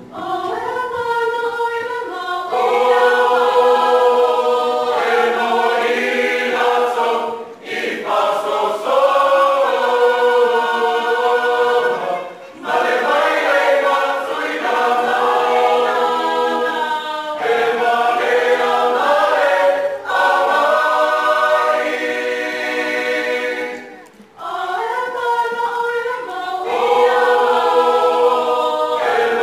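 Mixed youth choir of male and female voices singing a cappella in parts, in long held phrases with brief breaths between them about 7, 12 and 24 seconds in.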